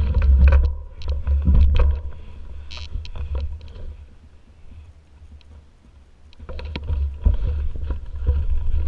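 Mountain bike running over a rough dirt trail: heavy wind rumble on the on-bike camera's microphone and the bike rattling and knocking over bumps. The noise drops away for a couple of seconds in the middle as the bike slows, then picks up again.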